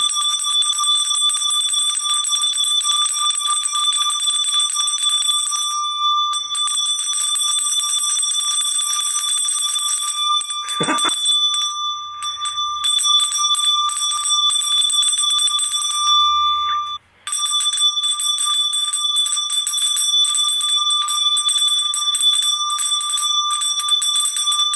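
A metal hand bell shaken rapidly and continuously, its clapper striking many times a second over a steady ring; the ringing stops for a moment about two-thirds of the way through, then starts again.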